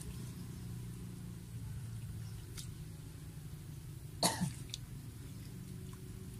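A person coughs once, short and sharp, about four seconds in, over a steady low hum.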